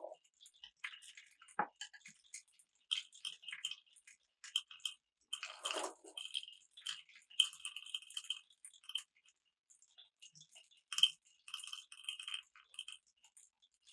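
Marbles rolling and clattering down a wooden marble run: a steady stream of irregular clicks and short rattles, with a fuller clatter about six seconds in and a sharp click about eleven seconds in.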